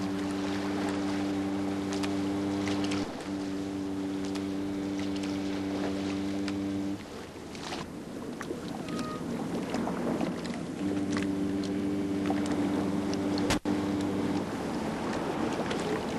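Ship's horn sounding low, long blasts: two back to back, then a third after a pause of a few seconds, over a wash of water and wind.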